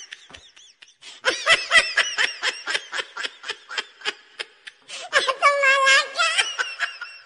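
A person laughing hard: a run of quick, evenly spaced bursts of laughter, about four a second, that rises into a long high-pitched squeal of laughter about five seconds in.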